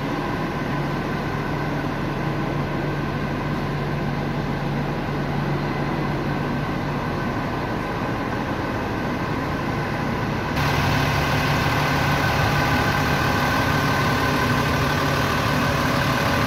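King Long coach idling, a steady low engine hum. About ten seconds in it suddenly gets louder and hissier.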